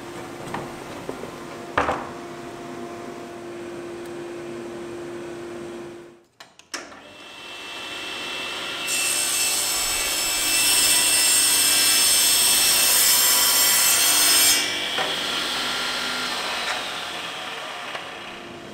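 Power saw cutting wood. A steady cut runs for about six seconds and breaks off abruptly; after the break a louder, harsher cut lasts about five seconds in the middle, then eases off.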